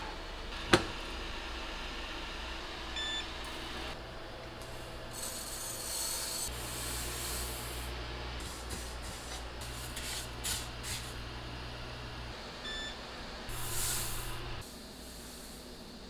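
A pan set down with a sharp clack on a glass induction cooktop about a second in, then short electronic beeps from the cooktop's touch controls. Dry grains are poured into the pan and stirred, rattling and scraping, over a low steady hum from the induction cooktop as it heats.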